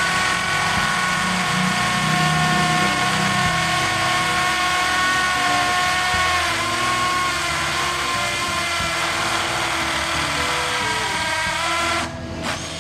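Porter-Cable PCC620 20V cordless hammer drill boring into a concrete beam with a half-inch masonry bit: a steady motor whine over dense drilling noise. It stops about twelve seconds in.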